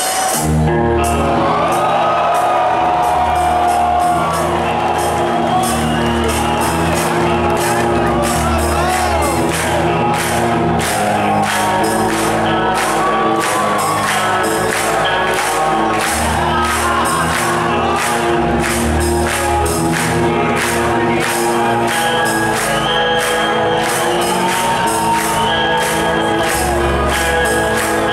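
Live heavy metal band playing a song that starts at the very beginning: electric guitars, bass and drums, with cymbals struck in a steady rhythm.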